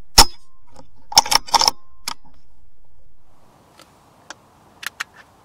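A single sharp crack as a BSA Super10 .22 pre-charged air rifle fires, followed about a second later by a quick run of sharp mechanical clicks and one more click shortly after. About three seconds in the steady background noise drops away, leaving a faint hiss and a few small ticks.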